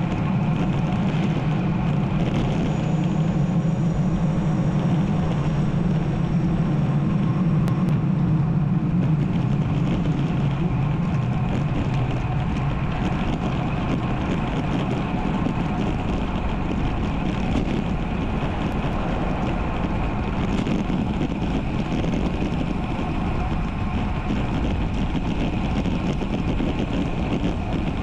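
Steady rush of wind and tyre noise from a road bike being ridden, heard through a bike-mounted GoPro's microphone.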